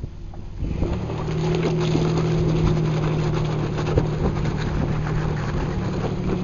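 Off-road 4x4's engine pulling under load at steady raised revs as the vehicle crawls over rough ground, with scattered knocks. The engine comes in under a second in and holds an even pitch.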